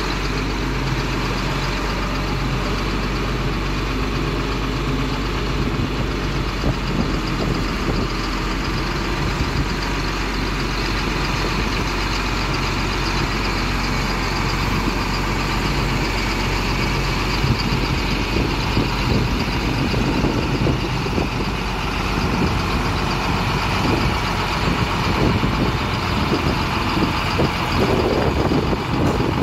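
John Deere 4955 tractor's diesel engine running steadily as the tractor drives across the yard, getting a little louder near the end as it climbs onto a lowboy trailer.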